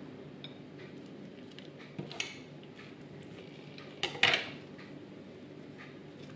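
Kitchen handling sounds as hands work a whole raw duck on a wooden cutting board: a few short knocks and rustles, the loudest about four seconds in.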